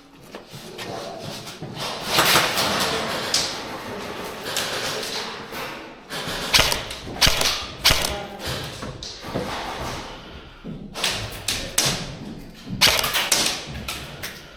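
Airsoft guns firing: sharp cracks and thuds in several short clusters, over a background of shuffling and movement noise.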